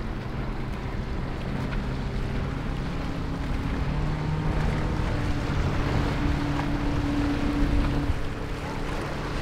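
Single outboard motor on a Key West 219 FS center-console boat running at planing speed, its steady engine note stepping up a little about halfway through, over the rush of hull spray and wake.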